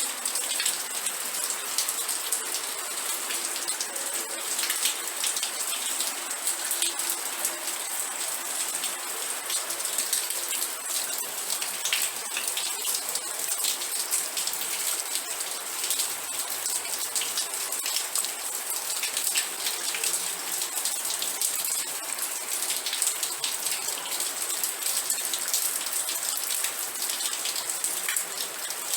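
Steady rain falling, a continuous hiss dense with the small hits of individual drops on a surface.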